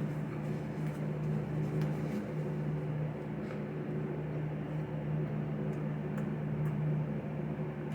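Steady low mechanical hum of a running appliance or motor, with a few faint clicks over it.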